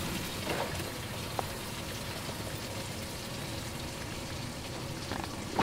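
Water splashing steadily into the open livewell of a bass boat from its aerator pump, with a light click about a second and a half in.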